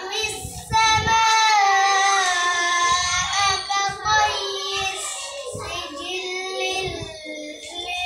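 A boy reciting the Quran aloud in the melodic chanted style of qirat, drawing out long held notes that glide up and down in pitch.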